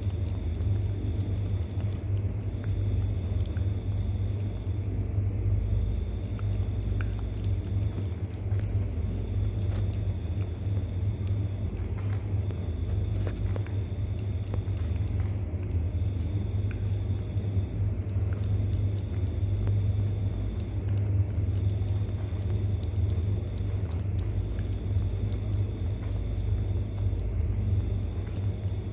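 A cat lapping raw egg yolk from a bowl, its tongue making faint wet clicks over a steady low rumble. A faint high tone comes and goes about every two seconds.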